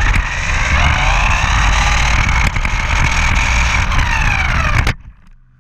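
Brushless electric motor of an HSP Planet 1/8-scale RC buggy whining as it accelerates, the pitch rising, holding and then falling, over a heavy rumble of the chassis and tyres on the ground. The sound drops away suddenly about five seconds in.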